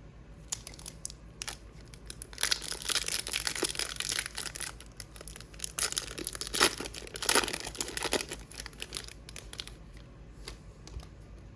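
A trading card pack wrapper being torn open and crumpled: a few light clicks, then two spells of crinkling and ripping about two and a half and six seconds in.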